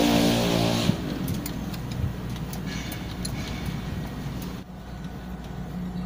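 A running engine hums steadily with a hiss, then drops off sharply about a second in. A low steady hum is left, with light scattered clicks.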